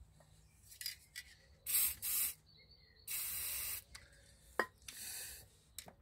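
Aerosol can of penetrating spray hissing in several short bursts onto a seized rear brake caliper, the longest about three seconds in, to let it soak and free off. A single sharp metal click in between.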